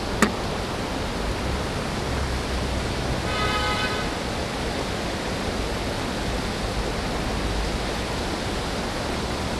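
Steady rush of shallow creek water running over rocks in a riffle. A brief high tone sounds once, about three and a half seconds in.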